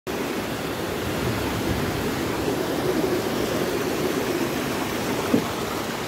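Steady rushing of a waterfall, with one brief thump a little past five seconds in.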